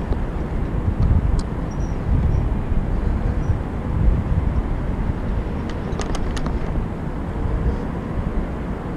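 Steady low rumbling noise of riding along a paved bridge walkway, wheels rolling, with a short cluster of sharp clicks about six seconds in.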